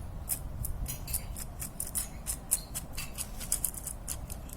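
Bicycle freewheel being turned by hand after oiling, its ratchet pawls clicking in quick, uneven ticks.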